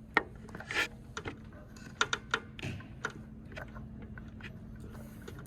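Scattered light clicks and knocks of hand work on an exit sign being replaced, over a faint steady low hum.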